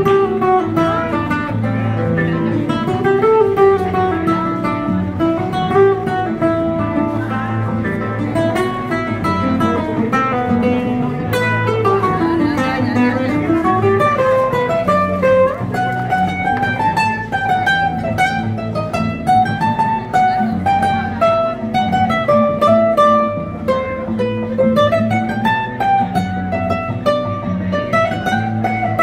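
Solo nylon-string classical guitar, fingerpicked: quick melodic runs that climb and fall over steady repeated bass notes.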